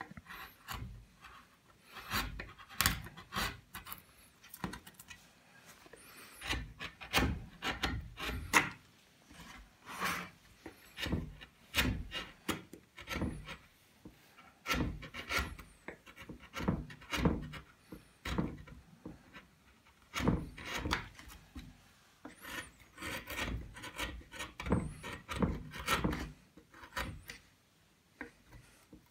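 Hand-pushed wood carving chisel cutting and scraping a carved wooden relief panel: short, irregular paring strokes, often several in quick succession with brief pauses between them.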